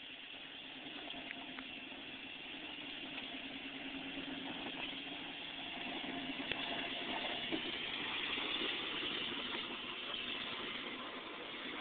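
A vehicle engine running steadily, growing somewhat louder from about halfway in.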